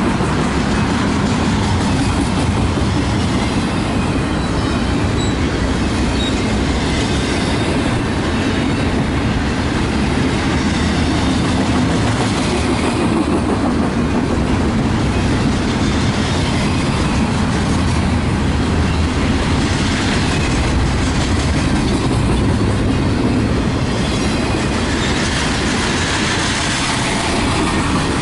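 Double-stack intermodal freight train's well cars rolling past: a loud, steady rumble of steel wheels on the rails.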